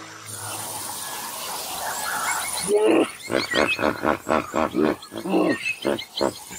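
Hippopotamus calling: a rapid series of deep grunting honks, about four a second, starting about three seconds in after a rising rush of noise.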